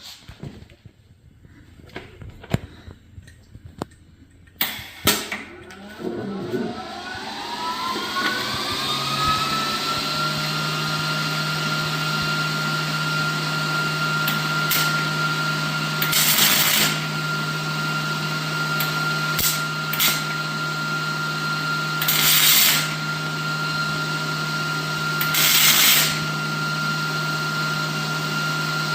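A few light clicks, then an electric power tool motor spins up, its pitch rising for a few seconds before it settles into a steady run with a low hum. Four short hissing bursts break in over the steady running.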